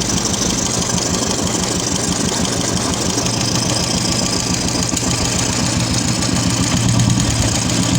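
Royal Enfield Classic 350 single-cylinder UCE engine idling steadily with a tapping from the valve train: hydraulic tappet noise, which the mechanic puts down to a weak oil pump that has let the tappets fail.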